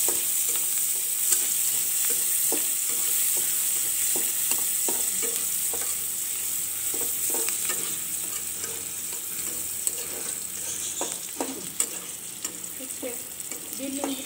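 Sliced onion, garlic and dried red chillies sizzling in hot oil in a metal karai, with a steady hiss. A spatula scrapes and knocks against the pan in short strokes as it stirs.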